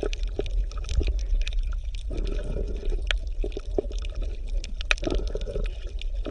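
Shallow stream water splashing and gurgling, with many small quick splashes over a steady low rumble.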